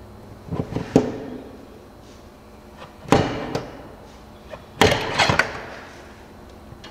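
A steel belt pulley being worked onto a mower-deck spindle shaft, knocking and clanking against the shaft and the steel deck in three or four short groups of sharp metal knocks, loudest around five seconds in.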